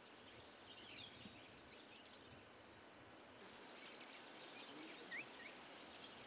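Faint natural bush ambience: a steady hiss with a few distant bird calls, including a short rising whistle about five seconds in.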